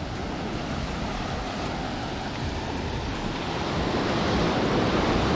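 Sea surf washing up the beach, a steady rushing noise with wind buffeting the microphone; it grows a little louder about four seconds in.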